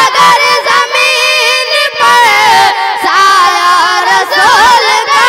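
Young boys singing a naat into handheld microphones, amplified over a PA, the melody moving in long held notes with wavering ornaments.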